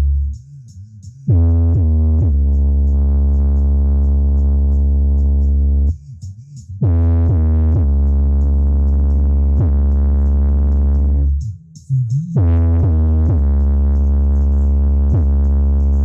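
Electronic music with long, held deep bass notes played loud through a paredão sound system's Triton woofer. The music comes in three stretches of about five seconds each, separated by short breaks of about a second.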